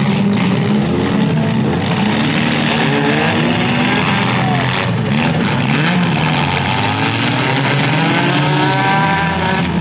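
Several compact demolition derby cars' engines running and revving together, their pitches rising and falling and overlapping.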